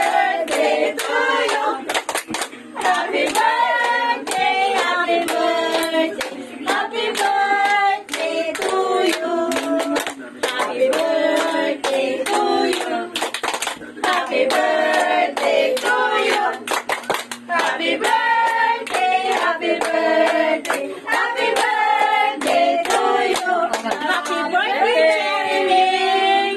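A group of people singing together in a small room while clapping their hands in time.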